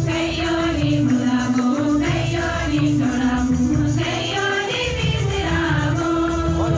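Choir of women and girls singing a church entrance hymn in unison, amplified through microphones and a loudspeaker, over keyboard and rhythm accompaniment.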